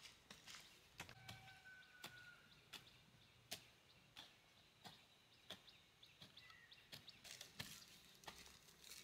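Near silence: faint ambience with scattered soft clicks and taps, and a few brief, faint high chirps.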